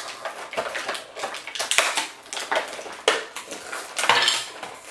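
Clear plastic toy packaging crinkling and crackling in irregular bursts as it is handled and pulled open, with small plastic pieces clicking inside.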